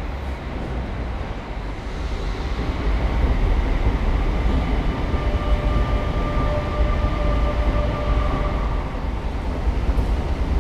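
Metro station noise: a steady rumble that grows louder about two to three seconds in, with a steady whine in the middle that fades out near the end.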